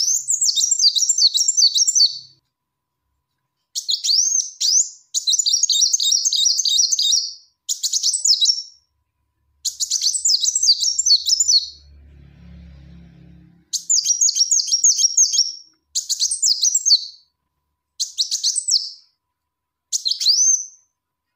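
Female kolibri wulung sunbird calling: phrases of rapid, high, thin chirps, each a second or two long, separated by short pauses. It is the female's call to the male, played as a lure call. A brief low hum sounds about twelve seconds in.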